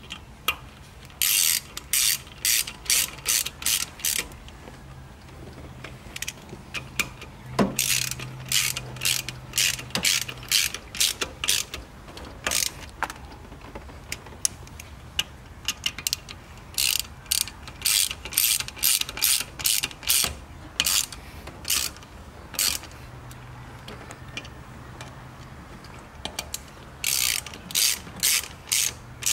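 Hand ratchet wrench clicking in quick runs of strokes, with pauses between the runs, as the screws holding the short shifter's base are tightened.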